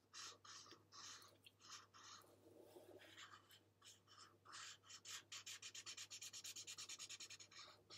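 Faint scratching of a water-based felt-tip marker on paper: scattered strokes at first, then quick back-and-forth scribbling at about six or seven strokes a second from about five seconds in until near the end, as a petal is coloured in.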